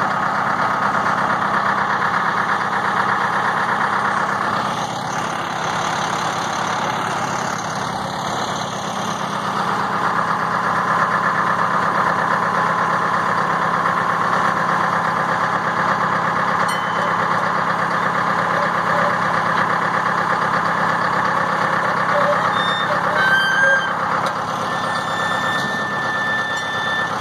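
A 1948-53 Dodge cab-over truck's engine idling steadily as the truck backs slowly off a trailer and down its ramps.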